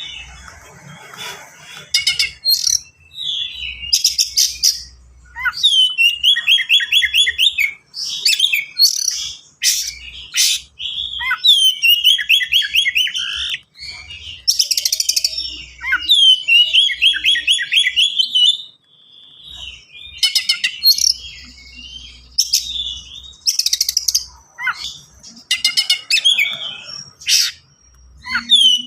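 Oriental magpie-robin singing fast and densely: phrase after phrase of rapid runs of repeated notes, mixed with sharp high notes and varied fill-in notes, with only short pauses between phrases.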